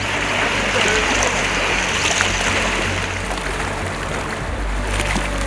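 Water splashing and churning as young African elephants wade and bathe in a river.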